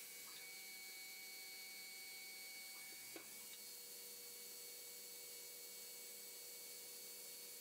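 Faint, steady hiss and hum with a few thin, steady whining tones from a CNC lathe's running drives as it machines a gold ring. A click comes about three seconds in, where the tones change.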